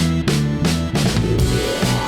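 Film score music with a drum kit, bass and guitar and a steady beat, coming in suddenly just before.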